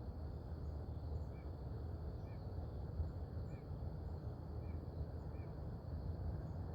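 Outdoor pond-side ambience: a steady low rumble with about five short, high chirps scattered through it and a faint steady high hum.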